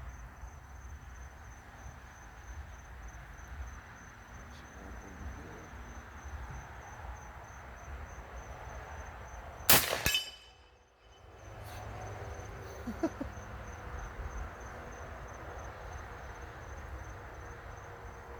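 A single shot from an AEA Element Max .510-calibre big-bore PCP air rifle, a sharp loud crack about ten seconds in. Before and after it, night insects keep up a steady high chirring over a low rumble of wind.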